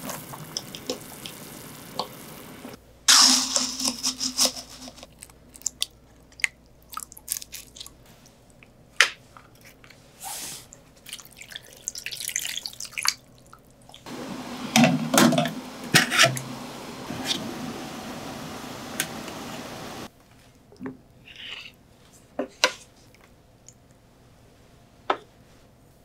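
Kitchen work on tilefish heads: water sloshing and dripping as a head is dipped in a mesh strainer, in stretches of steady noise broken by scattered sharp clicks and knocks of handling.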